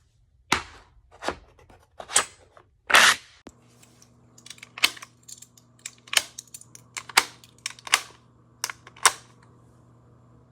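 Cartridges being clacked into rifle magazines with a magazine-loading board: a dozen or so sharp, irregularly spaced clacks, the loudest about three seconds in.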